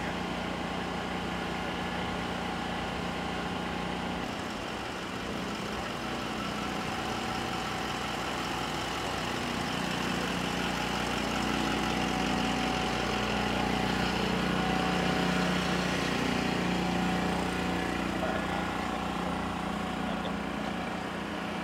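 A large vehicle's engine running steadily, a little louder around the middle and easing off toward the end.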